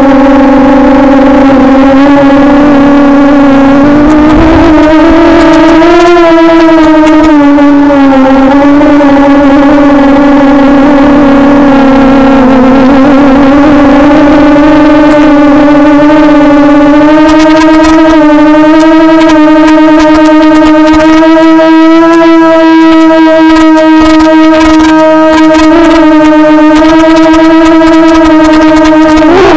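Quadcopter's motors and propellers whining steadily, the pitch wavering and rising as the throttle changes, with a sharp dip and rise near the end. Crackling joins in from about halfway.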